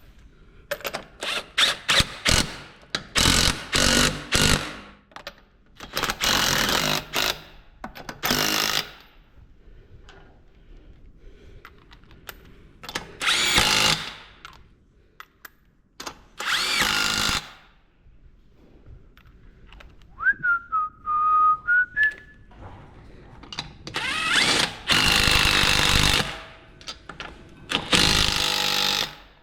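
A handheld power tool run in repeated short bursts of a second or so with pauses between them, and a quick run of brief trigger pulls at the start.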